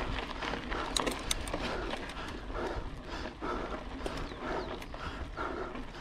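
A cyclist breathing hard from exertion, heavy rhythmic breaths at about one a second, close to the microphone. A few light clicks come about a second in.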